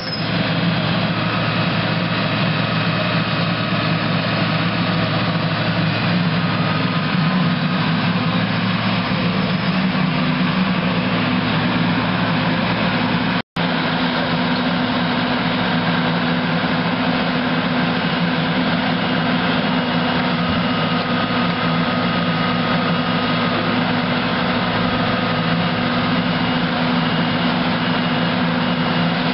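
John Deere 6068H six-cylinder diesel engine of an excavator running steadily with a constant hum. The sound drops out for an instant about halfway through.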